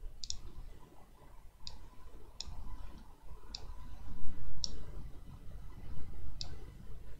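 Computer mouse buttons clicking: about six separate, sharp clicks at irregular gaps of roughly a second, over a low steady room rumble.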